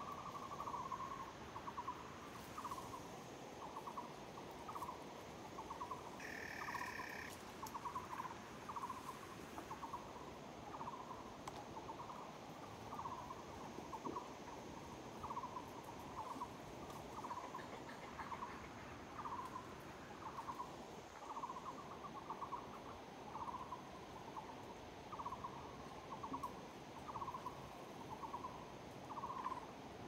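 An animal calling over and over in forest, a short buzzy note repeated at an even pace a little faster than once a second.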